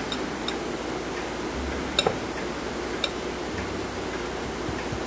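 Wire whisk beating sugar, oil and eggs in a glass bowl: a steady swishing, broken by a few sharp clicks of the tines against the glass, the loudest a double click about two seconds in.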